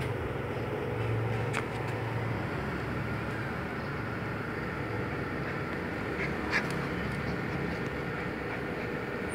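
Steady low background hum with a couple of faint, short, high squeaks from a golden retriever puppy, one about a second and a half in and another about six and a half seconds in.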